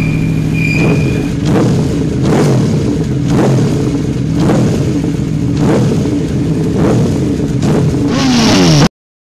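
Scooter engine started and running, revved in throttle blips about once a second, with a high whine over the first second or so. It stops abruptly near the end.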